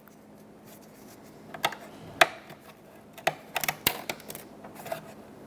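A few sharp, irregular clicks and taps of small clips and parts being snapped into a plastic door-handle assembly, the loudest about two seconds in.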